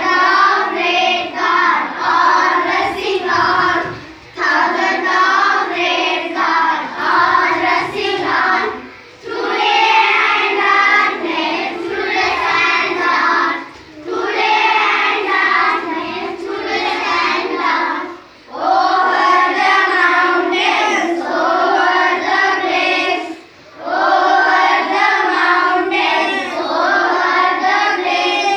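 A class of children singing a poem together in unison, in phrases of about four to five seconds with short breaks for breath between them.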